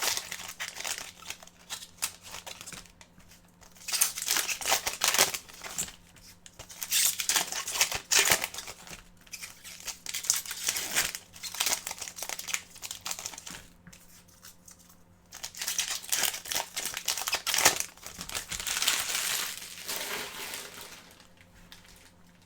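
Hockey card pack wrappers being torn open and crinkled by hand, in several bouts of crackling with short pauses between.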